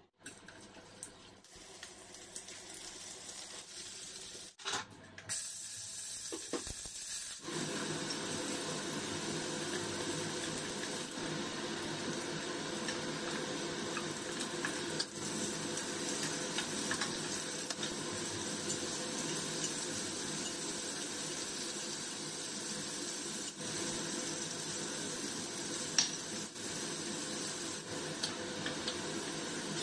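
Vegetables stir-frying in oil in a hot wok: a steady sizzling hiss that starts abruptly about seven seconds in, with a few sharp clicks from the wooden spatula against the pan.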